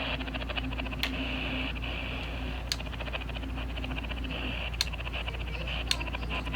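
EoxSmile CR1009 emergency radio on the shortwave band, hissing with static and fine crackle, with no station coming in. A few sharp clicks stand out, and a faint steady tone comes in near the end.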